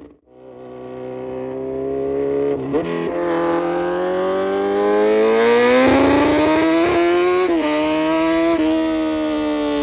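A Kawasaki Z900's inline-four engine with an aftermarket full exhaust, pulling hard. Its note climbs steadily in pitch, with short dips at each gear change, then falls slowly as the throttle eases near the end.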